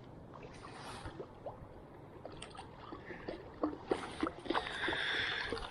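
A hooked rainbow trout splashing at the surface as it is played in and landed, in a run of short splashes that come thicker and louder toward the end, over steady river flow.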